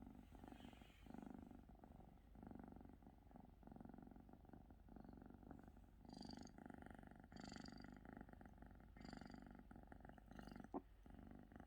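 Domestic cat purring in steady cycles of about a second each. Near the end comes a single short click, a hiccup as the cat swallows back saliva.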